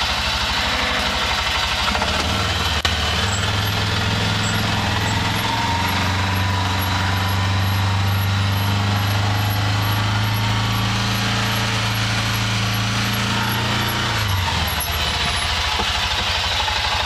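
2010 Arctic Cat Prowler 550 UTV's single-cylinder engine running under load in four-wheel high while pushing snow with its front plow, heard from inside its canvas cab. The engine revs up about two seconds in, holds steady, and drops back near the end.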